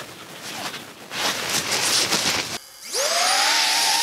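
Rushing noise, then about three seconds in the brushless motors and ducted propellers of a Reptile Cloud 149 cinewhoop FPV drone spin up on the ground. Their whine climbs quickly and settles into a loud, steady whine.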